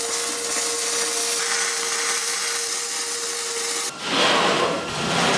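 MIG welding arc on steel, a steady crackling hiss with a faint steady hum under it, stopping abruptly about four seconds in. A heavy steel plate then scrapes as it is slid along the steel of the smoker.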